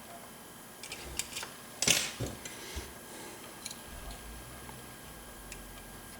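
Picking tools working inside a 7-pin Corbin Russwin mortise lock cylinder: scattered light metallic clicks and scrapes, with a louder cluster of clicks about two seconds in.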